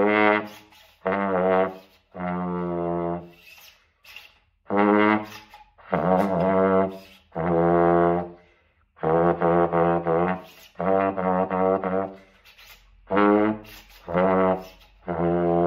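3D-printed plastic trombone playing a slow tune: about a dozen separate held notes with short breaths between them, one wavering in pitch about six seconds in.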